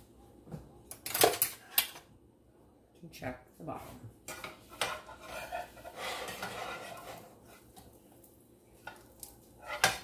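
Metal kitchen utensils clinking and clattering, then a spatula knocking and scraping in a nonstick frying pan. The loudest clinks come about a second in and again near the end.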